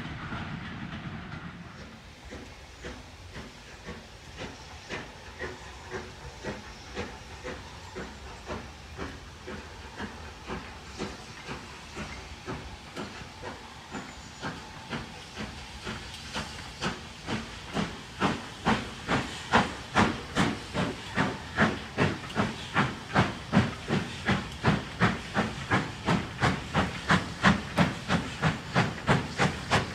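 Steam locomotive working hard as it approaches with its train, its exhaust beats growing steadily louder and slightly quicker: about one chuff a second at first, about a chuff and a half a second near the end. In the first couple of seconds the sound of a departing train fades away.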